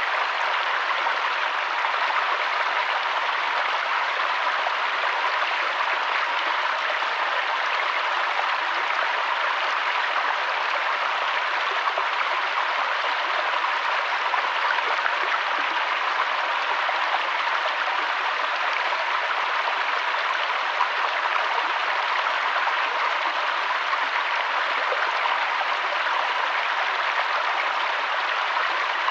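Mountain waterfall: water rushing down in a steady, even hiss, unchanging throughout.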